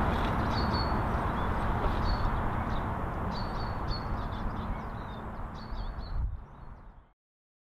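Steam train hauled by Bulleid Battle of Britain class pacific 34067 Tangmere pulling away, its steady rumble slowly fading. Small birds chirp again and again over it. The sound fades quickly and cuts to silence near the end.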